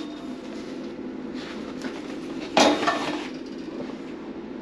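Things in a hotel closet being handled: a few light metallic clinks, with one louder clatter about two and a half seconds in, over a steady room hum.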